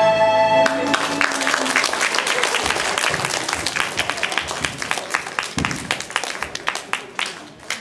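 Music ends on a held note, and an audience breaks into applause, the clapping thinning out and fading near the end.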